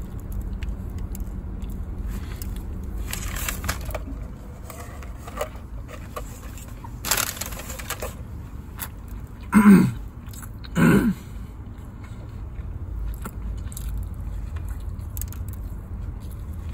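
A man chewing and swallowing a mouthful of fried chicken sandwich while eating as fast as he can. Soft chewing and breathing sounds run over a steady low rumble. About ten and eleven seconds in come two short, loud grunts that fall in pitch.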